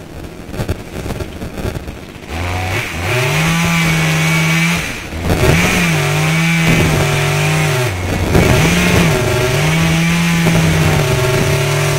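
Chainsaw idling unevenly, then revved up about two and a half seconds in and held at full throttle cutting into the base of a tree trunk, dropping back briefly twice.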